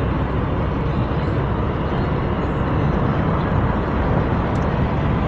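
Steady road noise inside a moving car at highway speed: a continuous rumble of tyres, engine and wind with no letup.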